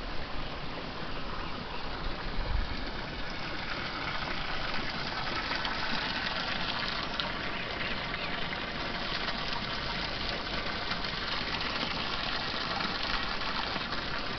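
Steady rushing hiss of steam and boiling water from a volcanic hot-spring vent, growing brighter a few seconds in.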